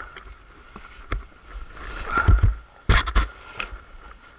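Kawasaki KDX220 two-stroke dirt bike moving slowly over rough, leaf-covered ground, with heavy thumps and clatter about two and three seconds in as it bumps over the terrain, over a steady high tone.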